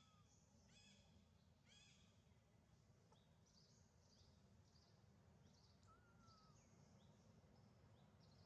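Faint bird calls over a low background rumble: a few repeated chirps in the first two seconds, then scattered short high chirps and one brief whistle about six seconds in.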